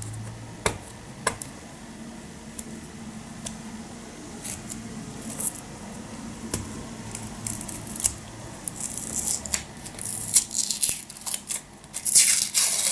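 Paper label being scratched and torn off a formula tin. A few small clicks at first, then a run of dry scraping and ripping that grows louder over the last few seconds.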